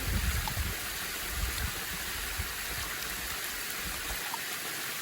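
Steady rushing of a creek running alongside the trail, with an irregular low rumble on top for the first four seconds or so.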